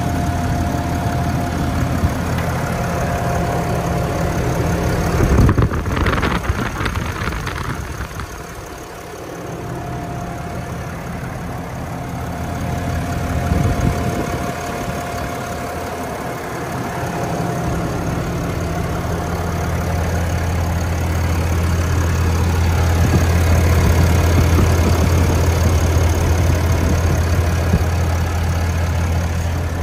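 Ram dually's 6.7 L Cummins turbo-diesel idling steadily. A brief rushing noise comes about five seconds in, and the idle hum grows louder in the second half.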